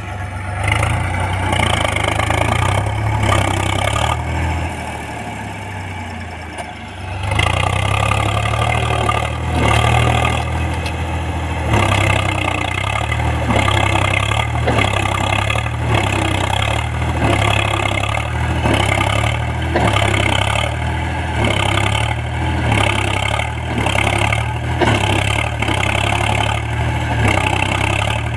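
Diesel tractor engine working hard while stuck in deep mud, its rear wheels churning. It runs softer for a few seconds, then picks up sharply about a quarter of the way in and keeps rising and falling every couple of seconds.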